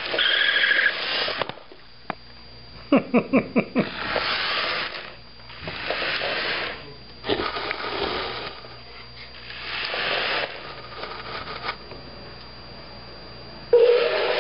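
Remote-control Buzz Lightyear toy: a quick run of about six short electronic blips from its speaker about three seconds in, followed by several second-long bursts of motor whirr as it is driven around.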